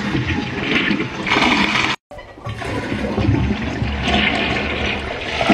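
Toilet flushing: water rushing and swirling down the bowl, rinsing away the cleaner. It is broken by a brief silent gap about two seconds in, then the rushing goes on.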